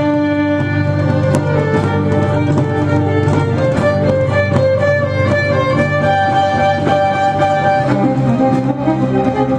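Celtic fusion instrumental music led by a fiddle playing long held notes over a steady low accompaniment.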